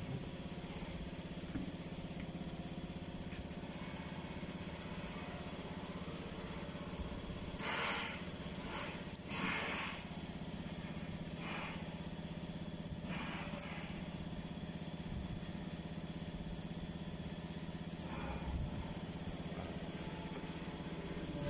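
Pneumatic UPVC window welding machine running with a steady hum, broken by a few short hisses of compressed air, mostly in the first half.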